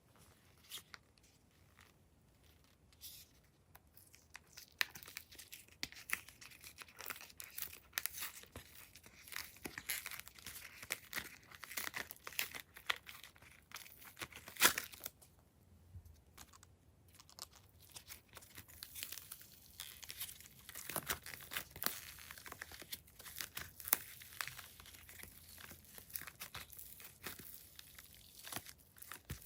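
Glossy slime being handled: stretched, folded and squished, making a stream of sticky crackles and small pops. There is one sharper, louder pop about halfway through, followed by a brief lull.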